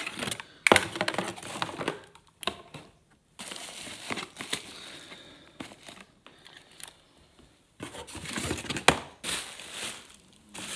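Packaging crinkling and rustling in irregular bursts as items are unwrapped and handled, with a few sharp clicks and knocks.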